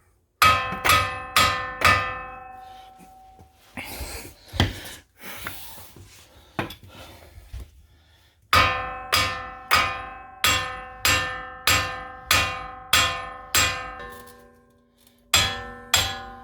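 Hammer blows ringing on the metal front wheel hub of a 2007 Ford Explorer, beating loose a hub that has rusted fast in its mounting. Four quick strikes, then a few lighter knocks, then a steady run of about two strikes a second.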